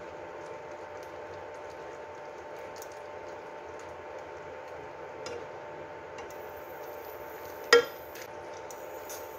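Silicone spatula stirring a thick cream sauce with melting mozzarella in a nonstick wok, with a faint steady hum underneath and small scrapes and clicks. A single sharp knock comes near the end.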